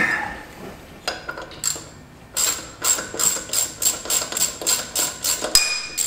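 Hand ratchet clicking in a quick, even run, about four or five clicks a second, as 10 mm bolts are backed out of a side-by-side's CVT clutch so it can close onto a new drive belt; a sharp knock of the tool at the start.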